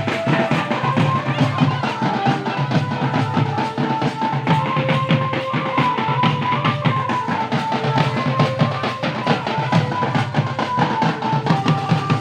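Upbeat dance music with a fast, steady drum beat and a melody stepping from note to note over it.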